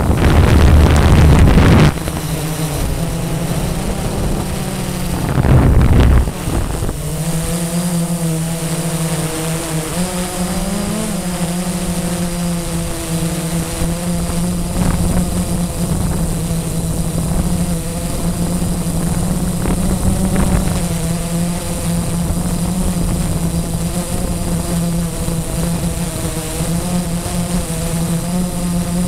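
Blade 350 QX quadcopter's electric motors and propellers buzzing steadily in flight, the pitch wavering slightly as the motors adjust. Wind buffets the microphone loudly in the first couple of seconds and again about six seconds in.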